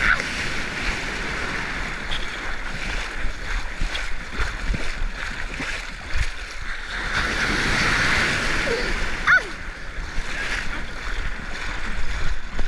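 Ocean surf washing steadily, swelling louder about seven to nine seconds in, with wind rumbling on the microphone.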